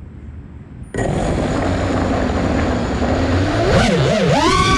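FPV racing quadcopter's brushless motors and propellers, heard from the onboard camera, throttling up sharply about a second in as the drone launches. Near the end the motor whine rises and falls in pitch as the throttle is worked in flight.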